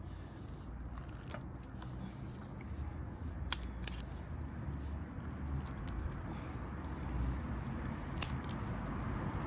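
Small fire burning in a micro stove, giving off scattered sharp crackles and pops over a low steady rumble.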